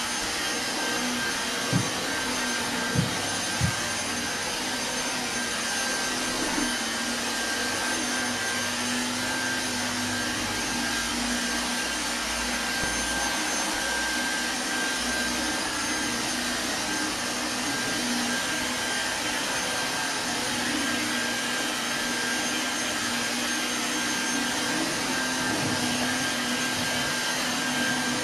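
Stick vacuum cleaner running steadily over carpet, a constant motor whine over even suction noise. Three short sharp knocks come about two to four seconds in.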